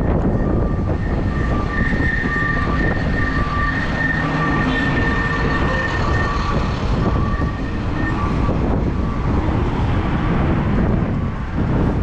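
Wind rushing over the microphone of a handlebar-mounted camera on a moving electric bike, over a steady low rumble, with a faint high whine that pulses on and off.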